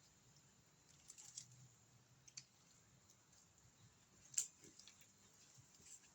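Near silence with a few faint, scattered clicks, one sharper click about four seconds in.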